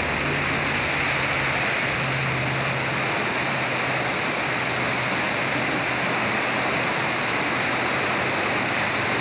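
Steady rushing of floodwater surging through a river's whitewater rapids, a continuous loud noise with no break.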